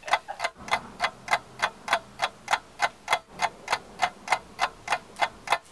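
Steady clock-like ticking, about four even ticks a second, with a faint low tone underneath: a ticking-clock sound effect.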